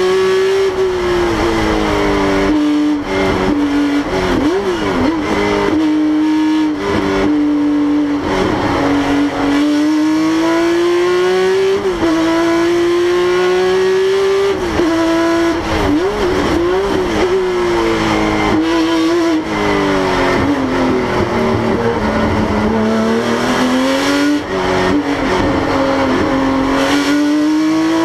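Porsche GT3 Cup car's 3.8-litre flat-six at race pace, heard from inside the cabin. The revs climb steadily and then drop sharply, sweep down and back up, and a few times flick quickly up and down.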